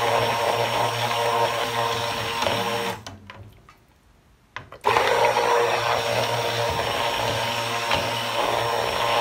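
Stick blender running in soap batter in a stainless steel pot, with a steady motor hum. It cuts out about three seconds in, a couple of light knocks sound in the pause, and it starts again nearly two seconds later. The blending brings the batter to trace; it has already thickened.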